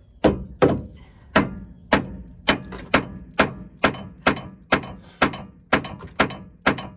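Hammer blows striking metal, about fifteen of them at a steady two a second, used to shock a stuck tie rod end loose from its tapered seat on a 1999 Chevrolet Tahoe's steering linkage without a pickle fork.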